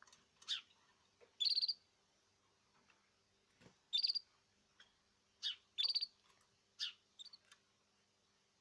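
A small cage bird giving short, sharp, high chirps, about eight of them at irregular intervals.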